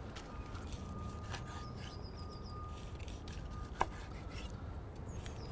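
Chef's knife slicing through a grilled, butterflied leg of lamb on a wooden cutting board: faint rubbing strokes of the blade with light ticks.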